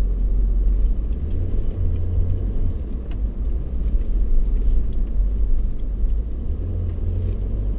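Vehicle driving along a soft sand track through dunes, heard from inside the cabin as a steady low rumble that swells a little at times, with a few faint ticks and rattles.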